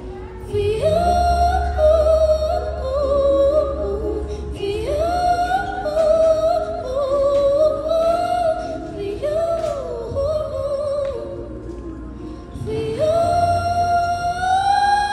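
Music with a lead singer holding long, gliding notes over a low bass, easing off briefly near the end before one long held note.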